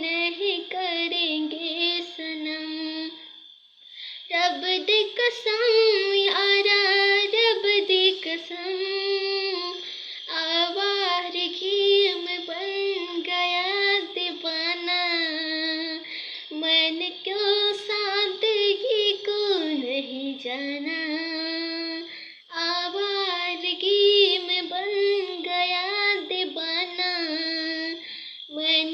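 A boy singing a melody in a high voice, with short breaks for breath about four seconds in, about two-thirds of the way through, and just before the end.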